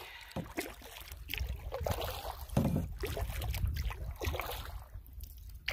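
Water splashing and lapping against the hull of a Swift Solo Prospector canoe under way on a lake, in uneven little splashes, with a low wind rumble on the microphone.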